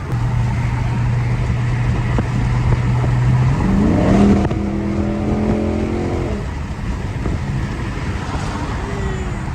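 Dodge Charger 392 Daytona's 6.4-litre HEMI V8 idling steadily, then revved up about three and a half seconds in, held for a couple of seconds and let fall back.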